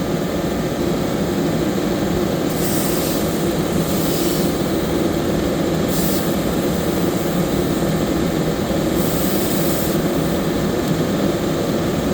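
Compressed air hissing in several short bursts as an inner tube is inflated through an air chuck, over a steady mechanical drone.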